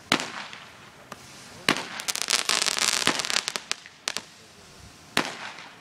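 Small consumer fireworks going off: a sharp bang just after the start, another about a second and a half later that runs into nearly two seconds of rapid crackling pops, then two more single bangs near the end.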